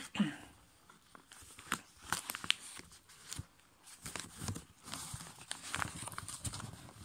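Sheet of copy paper being folded and creased by hand against a table: scattered crinkles and rustles, with short crisp clicks as fingers press along the folds.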